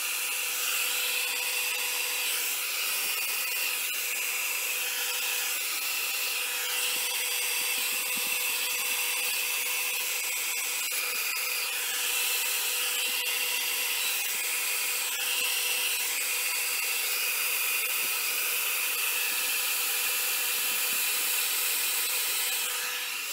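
Handheld electric hot-air blower running steadily with a constant whine, blowing over wet alcohol ink to spread and dry it; it is switched off right at the end.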